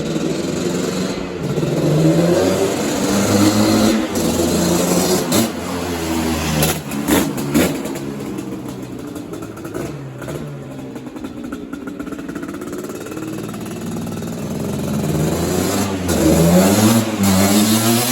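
1985 Suzuki LT250R QuadRacer's two-stroke single-cylinder engine through a full FMF exhaust, revving up and down while riding. There is a hard pull about two to four seconds in, an easier stretch in the middle, and another rising pull near the end.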